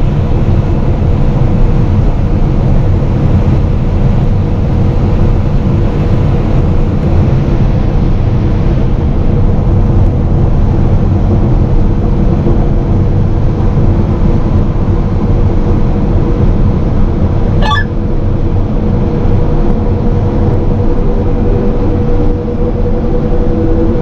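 Combine harvester running steadily while shelling corn: a loud, continuous machine drone with a constant whine over it, and one short click about eighteen seconds in.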